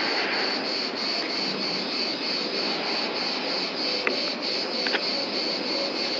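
Insects singing in a high, evenly pulsing chorus, about three pulses a second, over a steady background hiss.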